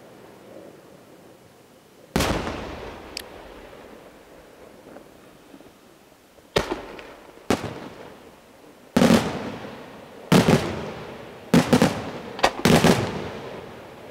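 Aerial firework shells bursting: single sharp bangs about two, six and a half and seven and a half seconds in, then a quicker run of bangs from about nine seconds on, each trailing off in a long echo.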